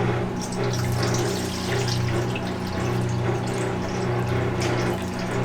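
Water running and splashing while it is worked into buckwheat noodle dough to adjust its moisture, over the steady hum of a kitchen machine's motor.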